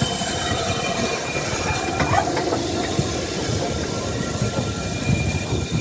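BR Standard Class 7 Pacific steam locomotive 70000 Britannia rolling slowly past at close range: a steady rumble of wheels on rail, with thin, high wheel squeal and a single clank about two seconds in.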